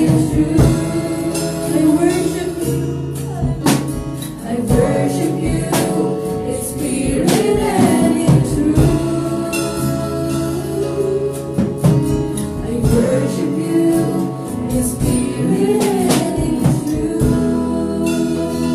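A girl sings a slow worship song into a handheld microphone over keyboard accompaniment with steady held chords and frequent light percussive hits.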